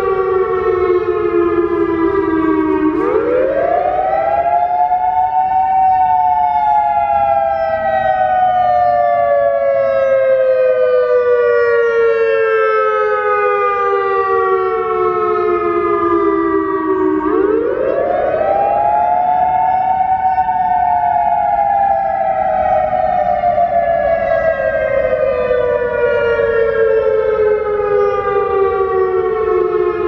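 Federal Signal EOWS 612 electronic outdoor warning siren sounding a wail from its rotating speaker array. The tone climbs quickly over about three seconds, then slides slowly down over about eleven, and the cycle comes twice.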